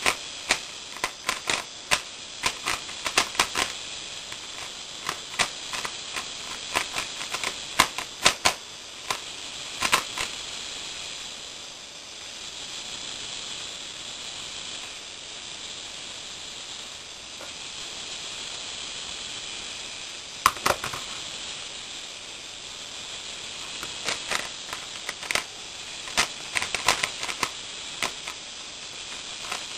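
3x3x3 Rubik's cube being turned by hand: quick clusters of plastic clicks from the layers, thick for the first ten seconds, then a lull with one click, then resuming near the end.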